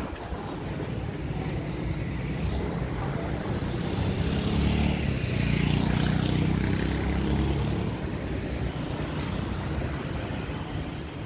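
Road traffic heard from above the road: a steady rumble of passing vehicles, swelling as one passes about four to eight seconds in, then easing off.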